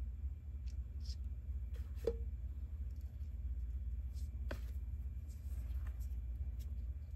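A few faint clicks and taps of small hard resin 3D-printed parts being handled and fitted together, the clearest about two seconds in and another about halfway through, over a steady low hum.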